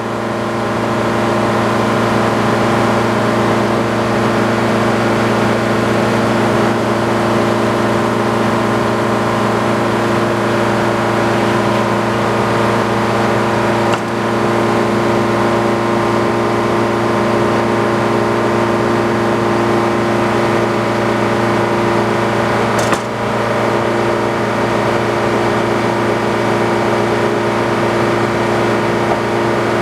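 Antique circular sawmill running steadily under power, its engine and spinning saw making a constant loud hum. The level dips briefly about halfway through, and a short sharp knock comes about two-thirds of the way in.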